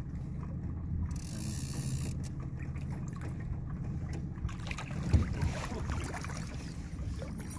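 Boat motor idling with a steady low hum, and water splashing at the boat's side near the end as a hooked lake trout is brought to the surface.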